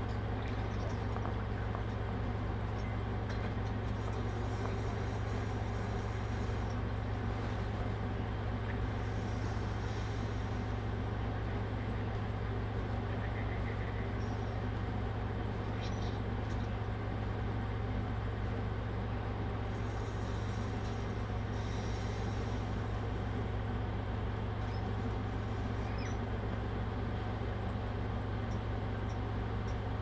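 A steady low hum, unchanging in level, with no speech over it.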